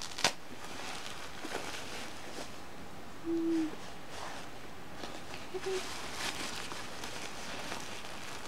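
Disposable diaper rustling and crinkling in short bursts as it is unfastened and handled, over a steady background hiss. There is a sharp crinkle just after the start, and two brief low hums about three and five and a half seconds in.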